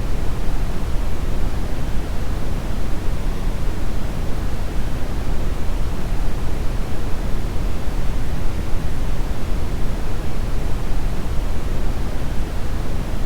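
Brown noise: a steady, even rumbling hiss, strongest in the deep low end and thinning toward the top, with no changes or events.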